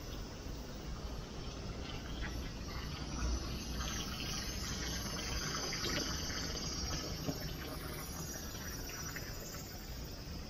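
A thin stream of water splashing from a spout into a concrete water channel, louder through the middle.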